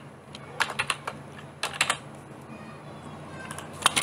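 Computer keyboard keys being typed, a handful of sharp clicks in three short clusters: about a second in, near two seconds, and near the end.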